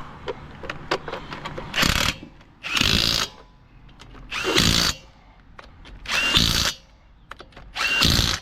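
Impact wrench running lug nuts onto a wheel in five short bursts, each about half a second, with pauses between.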